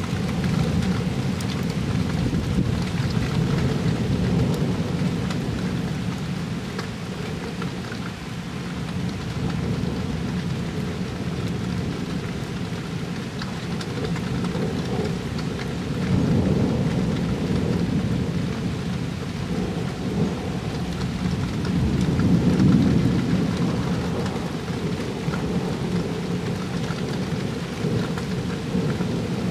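Thunderstorm: steady rain hissing, with rolling thunder rumbling and swelling several times, louder about a second in, just past the middle and again about two-thirds of the way through.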